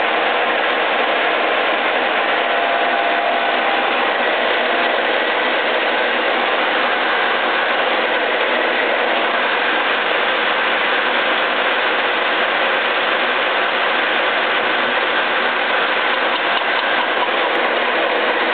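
Ex-Soviet horizontal boring mill running steadily, its spindle and gear drive turning a boring bar that machines a repaired pivot bore. The noise is even throughout, with a few faint steady tones.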